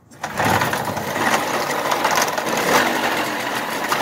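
1997 Kinetic moped's two-stroke engine kick-started, catching within half a second and then running steadily.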